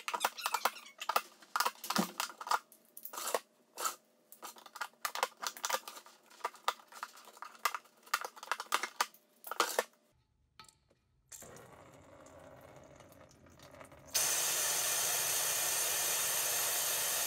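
A knife cutting through a plastic tote lid in a rapid, irregular run of short scraping strokes. About fourteen seconds in, the air compressor tank's drain valve is opened and compressed air blows out the condensed, rusty water with a loud, steady hiss.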